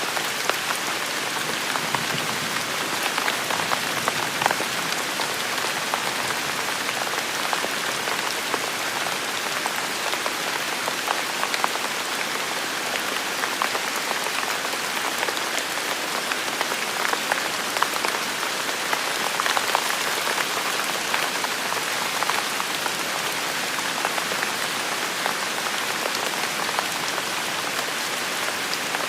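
Steady rain falling, a continuous hiss with many individual drops pattering and ticking on a surface.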